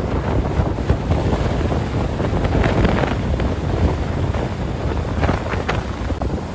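Wind buffeting the microphone of a moving motorbike, a heavy steady rumble with road and engine noise under it, broken by a few short clicks or knocks midway and again later.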